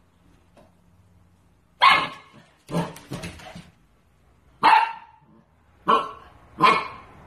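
Husky puppy barking at its own reflection in a mirror: five short barks, the first about two seconds in, with the second trailing off into a few smaller sounds.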